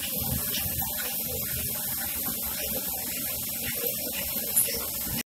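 LPG gas burner running steadily under the rotating cast-iron pressure vessel of a hand-cranked traditional popcorn maker, a continuous rushing noise while the corn heats. The noise cuts off abruptly near the end.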